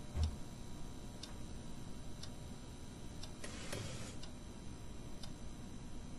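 A clock ticking steadily, about once a second, over a low room hum. A low thump comes just after the start, and a brief rustle of a book page turning comes a little past halfway.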